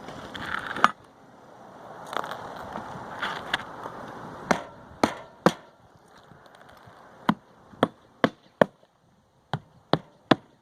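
Roofing hatchet driving 2-inch hand nails through asphalt shingles. A few scattered sharp blows over rustling and scraping come first, then quick runs of three or four strikes per nail.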